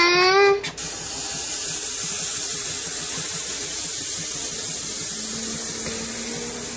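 Pancake batter sizzling as it is poured into a hot skillet: a steady high hiss that starts about a second in.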